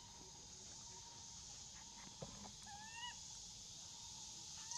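A baby long-tailed macaque gives short rising coo calls, twice, each about half a second long, while an adult holds it back by the tail.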